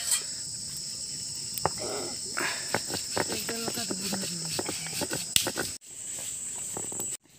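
A steady high-pitched insect drone with scattered scrapes and knocks from a stone roller being worked over a flat grinding stone to crush spices. The sound cuts out briefly twice near the end.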